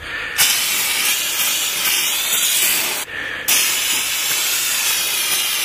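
Aerosol can of starting fluid sprayed into a lawn mower engine's open air intake to prime it for a cold start: two long hissing sprays of about two and a half seconds each, with a short break about three seconds in.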